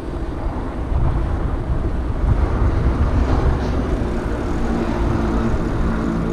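Wind rushing over an action camera's microphone while a Giant Talon 2 mountain bike rolls along on asphalt, giving a steady low rumble. A faint steady hum joins about five seconds in.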